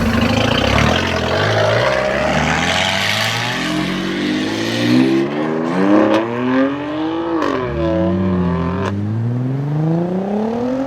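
Audi RS4 B5's 2.7-litre twin-turbo V6 accelerating hard, its pitch climbing steadily, dipping at a gear change about eight seconds in, then climbing again. A few sharp cracks come in the middle of the pull.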